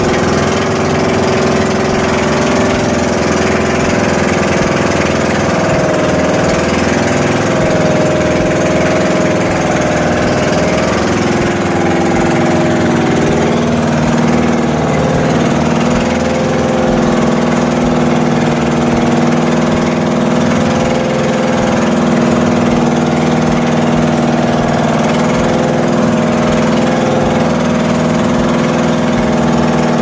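Outrigger boat's engine running steadily at cruising speed, its pitch shifting slightly about twelve to fourteen seconds in.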